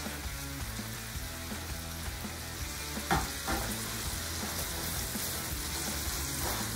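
Mustard and broth sauce sizzling steadily in a skillet on a gas burner while a wooden spoon stirs it, with one short knock about three seconds in.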